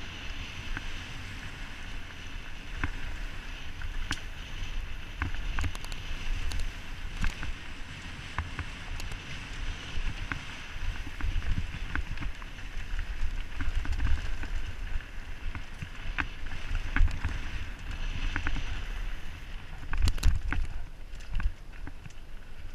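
Mountain bike ridden fast down a dirt and stone trail: tyres crunching over gravel and wind rumbling on the microphone, with frequent clicks and rattles from the bike hitting stones and roots and a burst of harder knocks about twenty seconds in.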